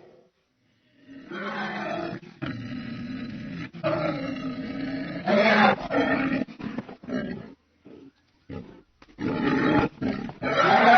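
Movie-style monster sound effects: a series of separate creature growls and roars, each about a second long with short gaps between them, louder again near the end.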